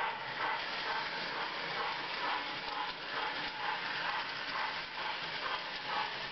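LionChief locomotive sound board playing electronic steam chuffs at an even rate of about two to three a second, over the steady running noise of the toy train on the track. The chuff rate is fixed because the chuffs are timed by a self-flashing LED and photo resistor instead of a wheel tach strip, so they do not follow the train's speed.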